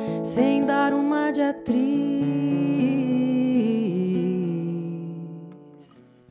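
A woman's voice singing a wordless melody over acoustic guitar, the close of an MPB song; the music fades out near the end.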